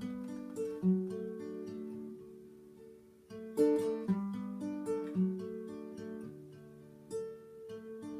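Acoustic guitar playing alone, picked notes and chords struck about every second and left ringing as they die away, without vocals.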